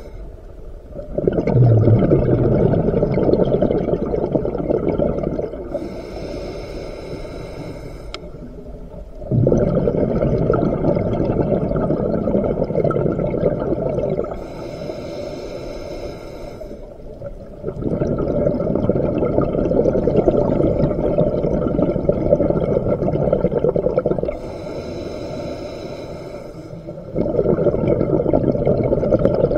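A scuba diver breathing through a regulator underwater: long bubbling exhalations of four to six seconds, four in all, alternating with three shorter, quieter hissing inhalations that carry a thin whine.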